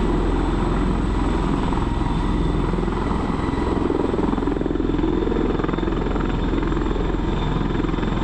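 Bell V-280 Valor tiltrotor flying low in helicopter mode, proprotors tilted up: a steady, rapid beat of the rotor blades with thin steady high tones above it.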